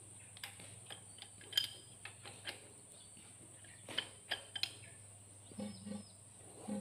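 A few scattered light clicks and taps, the loudest about one and a half seconds in and a small cluster around four seconds, over a faint steady hum.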